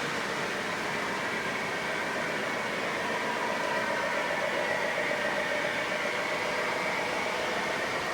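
O gauge toy train running on its track: a steady rolling hiss with a faint motor whine that grows a little louder midway.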